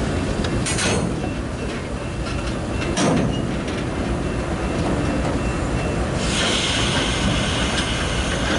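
Freight cars rolling slowly past with a steady steel-wheel rumble, a sharp clunk of the wheels over the rail joints about one second in and again about three seconds in. About six seconds in, a high-pitched wheel squeal sets in.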